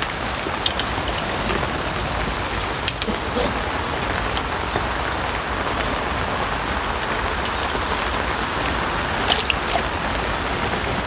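Steady rain falling on a pond's water surface, an even hiss, with a few sharp clicks about nine seconds in.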